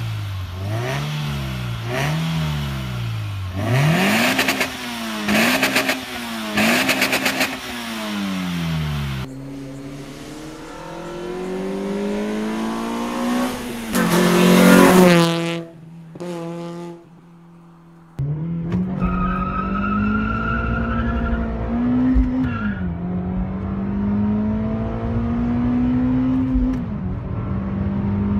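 Toyota 3S-GE inline-four engine revved in a string of quick blips, several with sharp noisy bursts. The revs then climb long and high to a loud peak that cuts off suddenly. After a short lull the engine pulls under acceleration, heard from inside the car, its pitch rising steadily with one dip where it changes gear.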